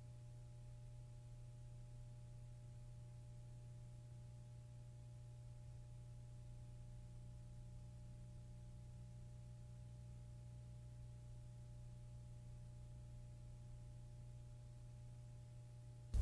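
Near silence with a faint steady low electrical hum and a few thin steady tones; no pen strokes are heard.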